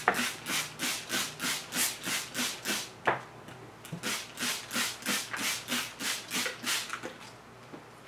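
Trigger spray bottle squirting water onto folded paper towels in quick repeated pumps, about three a second. There is a short break about three seconds in, then the spraying goes on and stops near the end.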